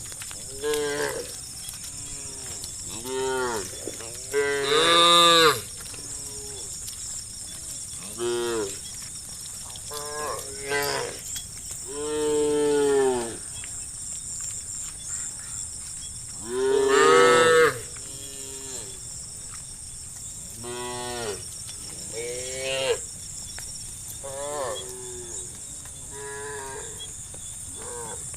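Cows mooing repeatedly, about a dozen calls of varying length from several animals. The loudest calls come about five seconds in and again around seventeen seconds. A steady high hiss runs underneath.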